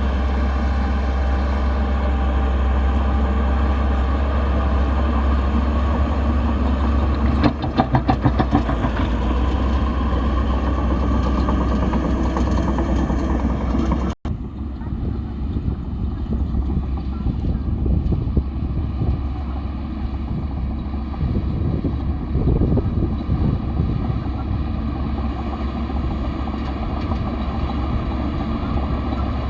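Bulldozer's diesel engine running steadily with a deep hum, with a quick run of metallic clanks about eight seconds in. The sound cuts out abruptly for an instant about halfway through, then the engine carries on with a rougher, fluctuating tone.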